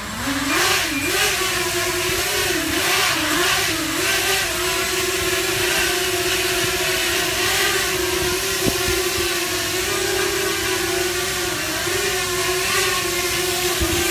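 Scorpion Sky Strider 280 quadcopter's motors and propellers spinning up for takeoff, then hovering: a steady buzzing whine that rises in pitch at the start, wavers with throttle corrections for the first few seconds, then holds even.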